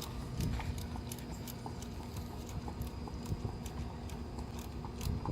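Light, irregular clicking and tapping, a few clicks a second, over a low rumble and a faint steady high tone.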